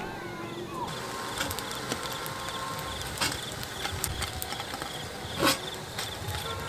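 Insects chirping in a steady pulsing rhythm, with scattered light clicks and one short louder sound about five and a half seconds in.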